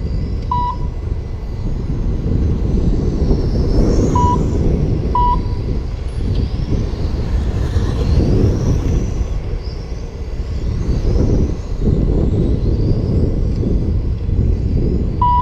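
Electric RC cars running laps, their motor whine rising and falling as they pass, under a heavy low rumble of wind on the microphone. A few short electronic beeps from the lap-counting system: about half a second in, twice around four to five seconds, and once near the end.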